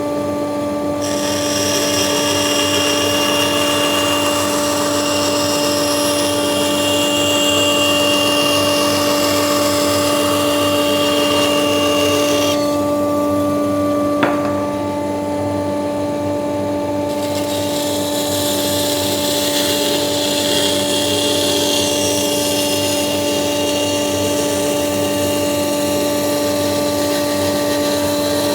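Metabo BAS 261 band saw running with a steady motor hum, its blade cutting through wood in two passes: one from about a second in to about twelve seconds, and another from about seventeen seconds on. A single sharp click sounds between the cuts.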